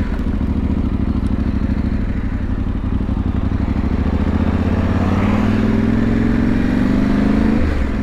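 Yamaha Ténéré 700's parallel-twin engine pulling away at low revs, then rising in pitch as the bike accelerates about five seconds in, before the pitch drops back near the end.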